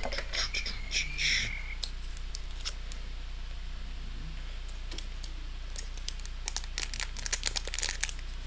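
Foil Pokémon booster pack crinkling and crackling in the hands as it is handled and opened, with small clicks and crackles in two runs, one near the start and another late on.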